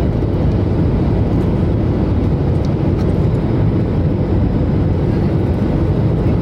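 Steady, loud, low-pitched cabin noise of an airliner on approach with its flaps extended: engine and airflow sound heard from inside the passenger cabin.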